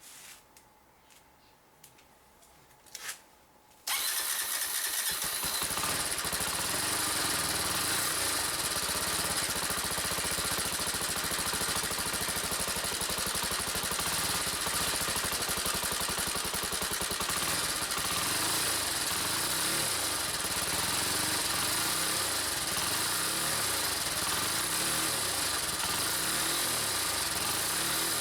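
Honda CBX125's single-cylinder four-stroke engine starting about four seconds in, after a couple of short clicks, then running steadily at an even level.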